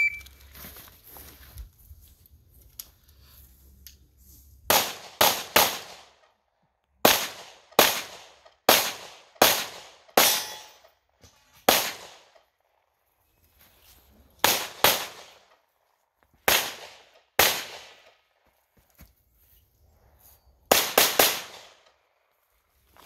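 Shot timer's start beep, then a pistol fired about fifteen times over some twenty seconds in quick strings of two to four shots and single shots, with pauses between: a timed action pistol course of fire.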